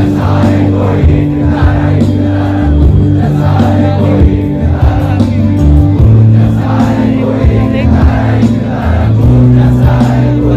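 Loud live band music: held bass notes that change every second or two under chords, with cymbal hits keeping a steady beat and voices singing over it.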